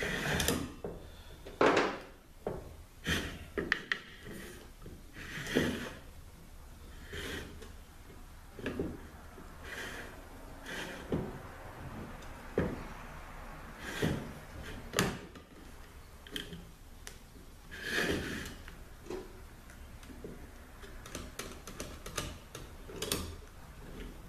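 Screwdriver and snap ring clicking, knocking and scraping on a 4L80E overdrive clutch housing as the ring is worked into its groove by hand, without a spring compressor. The clicks come irregularly, every second or so.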